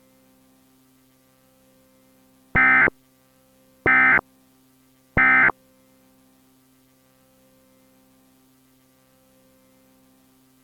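Emergency Alert System end-of-message data bursts: three short blasts of warbling digital tone, about a second and a half apart, signalling the end of the alert broadcast. A faint steady hum lies underneath between them.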